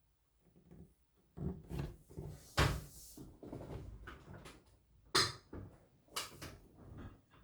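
A string of irregular knocks, clatters and rustles from objects being handled, the sharpest knocks about two and a half, five and six seconds in.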